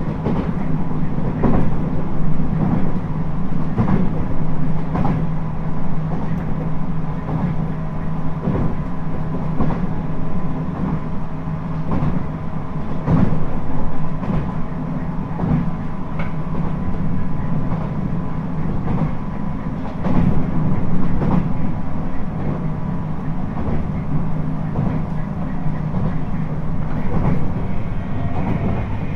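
Running sound inside a JR East 719 series electric train, a unit noted for an abnormal jet-like noise: a steady low hum with a few steady tones, and sharp rail-joint clicks every second or so as it rolls along the track. Near the end a higher whine begins to rise.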